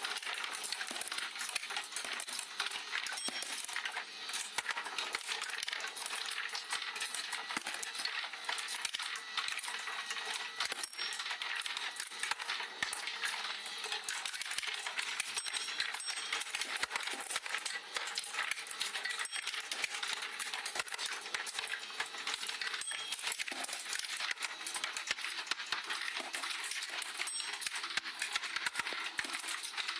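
Marbles rolling and clattering through a marble run: a continuous dense stream of small clicks and ticks as many marbles run along the tracks and knock into one another.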